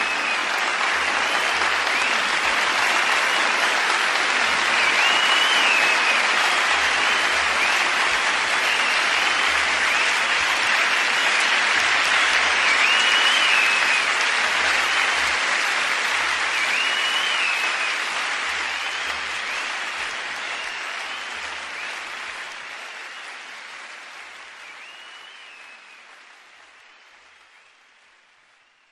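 Audience applauding, with a few whistles, fading out gradually over the last ten seconds.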